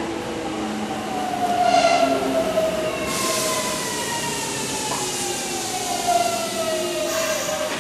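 Kintetsu 3200 series electric train's VVVF inverter whining in falling tones as it brakes to a stop at a platform. The whine steps down in two sweeps, and a hiss of noise joins about three seconds in.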